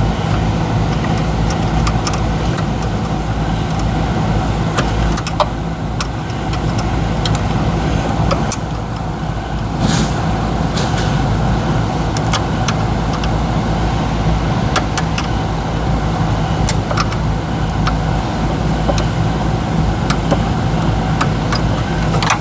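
A steady low mechanical hum, like a running motor or engine, with scattered sharp clicks and knocks of tools and parts being handled.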